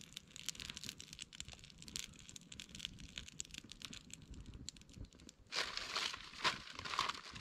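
Plastic food packaging crinkling and rustling as it is handled, with a louder burst of crinkling in the last couple of seconds.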